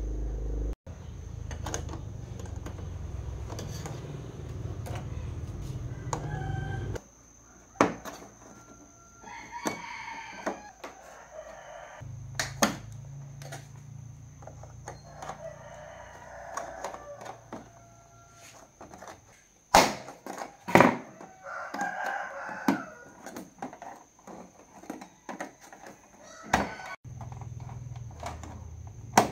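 A rooster crows three times, about six seconds apart, each crow lasting a second or two. Sharp clicks and knocks come and go around it, and a low hum stops and starts.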